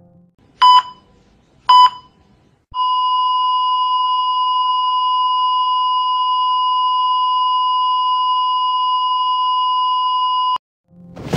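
Heart-monitor sound effect: two short beeps about a second apart, then a steady high flatline tone that holds for about eight seconds and cuts off suddenly, signalling that the patient's heart has stopped.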